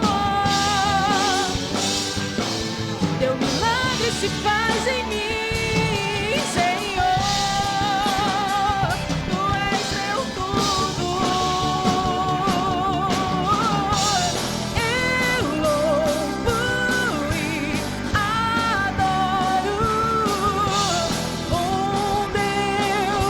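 Portuguese-language Catholic worship song performed by a vocal group with instrumental backing, the singer holding long notes with vibrato.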